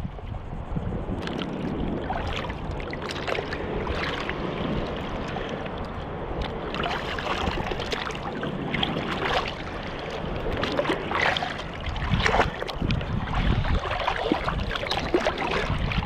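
Choppy bay water sloshing and splashing around a wader's legs and a metal detector's search coil, with irregular sharp splashes over a steady wash of waves and wind rumbling on the microphone.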